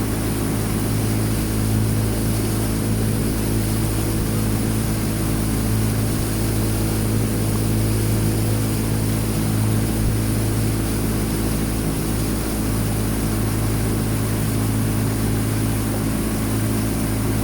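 Steady engine drone with a low hum, running evenly without change.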